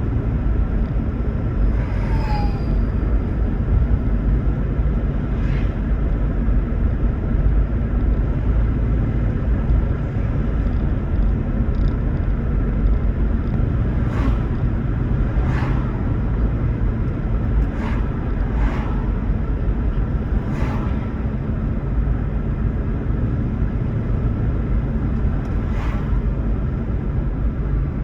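Toyota Prius driving at a steady pace: a continuous low road and tyre rumble, with a handful of short sharp ticks scattered through and a brief falling chirp about two seconds in.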